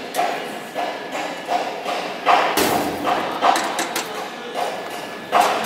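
Repeated dull knocks and thuds, roughly one every half second, with a heavier thud about two and a half seconds in: metal-working impacts such as hammering during assembly.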